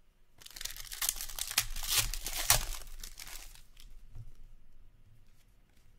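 Foil wrapper of a trading-card pack being torn open and crinkled by hand, a dense crackling rustle for about three seconds that then fades to faint card handling.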